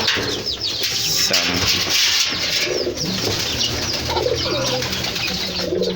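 Domestic pigeons cooing steadily in a loft, with short high chirps from other birds mixed in.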